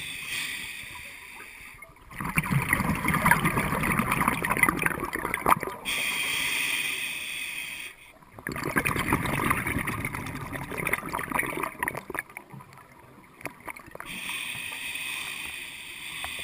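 Scuba regulator breathing underwater. A steady hiss on each inhale alternates with a longer, louder bubbling rush of exhaled air: two full breaths, with a third inhale near the end.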